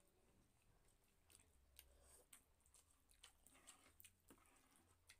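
Faint eating sounds: quiet chewing of noodle soup with scattered soft clicks.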